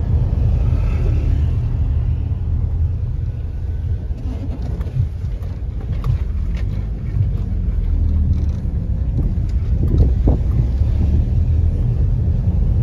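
Steady low rumble of a car driving, heard from inside the car.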